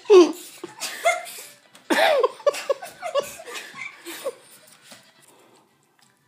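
Human laughter in broken bursts, loudest right at the start and again about two seconds in, dying away about five seconds in.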